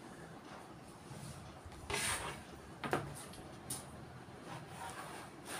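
Fabric and cutting tools being handled on a tailor's cutting table: a soft swish about two seconds in, a sharp click about a second later, then a brief faint hiss.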